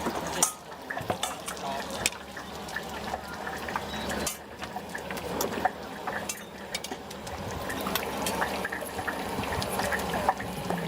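Liquid being poured and sloshed, with sharp clinks of utensils against pots and bowls.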